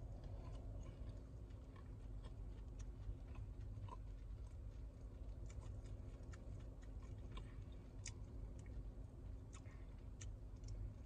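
A man chewing a spicy fried chicken sandwich, with faint, scattered wet mouth clicks, over a low steady rumble.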